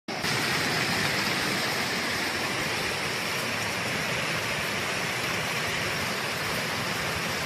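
Sudden torrential downpour: heavy rain falling in a dense, steady hiss. It cuts in abruptly right at the start.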